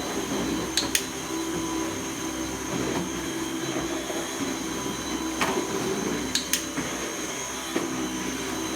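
Vacuum cleaner running steadily close by: a constant motor drone with a steady high whine. A few sharp clicks sound over it, about a second in and again around five to six seconds in.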